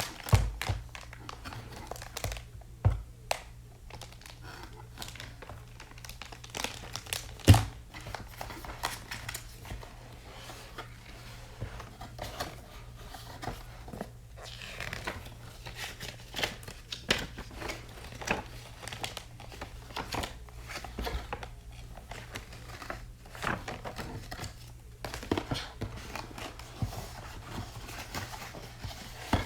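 Packaging from a keyboard unboxing being handled: crinkling and rustling with scattered light taps and clicks, and one sharper knock about seven seconds in.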